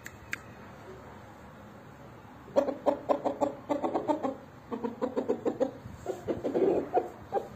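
Chicken clucking in rapid runs of short notes, starting about two and a half seconds in after a quiet start.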